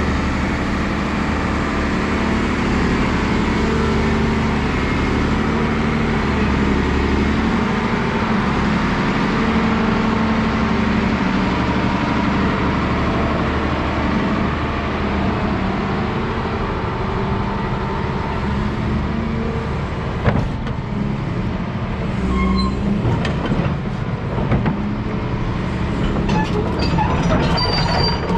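Volvo EC360B tracked excavator's D12D diesel engine running steadily. About two-thirds of the way in, metal clanks and squeaks join and grow more frequent toward the end.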